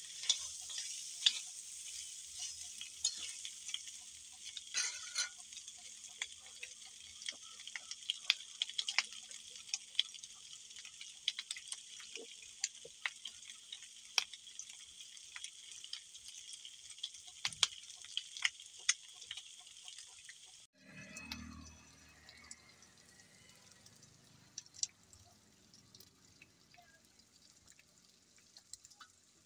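Pork frying in a wok: a steady sizzle with frequent sharp pops and crackles of spitting fat. About two-thirds of the way through it cuts off abruptly, and a much fainter sizzle with occasional small clicks follows.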